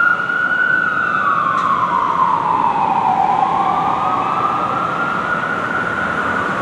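Siren on a 2007 Spartan Gladiator/Smeal fire truck wailing: one tone slides slowly down from high to low about three seconds in, climbs back up, and starts falling again near the end, over traffic noise.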